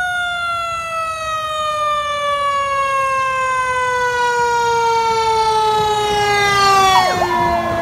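Fire engine siren winding down in one long, slow falling wail, growing louder as the truck approaches. Its pitch drops sharply as the truck passes close, about seven seconds in, and a steady higher tone comes in near the end.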